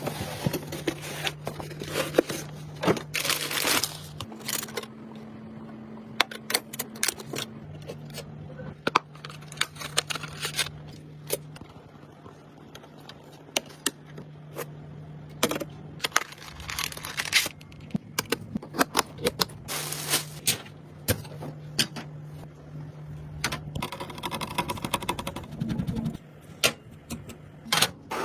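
Handling noises from assembling a computer: irregular sharp clicks, scrapes and plastic crackling as parts are unpacked and fitted, over a steady low hum.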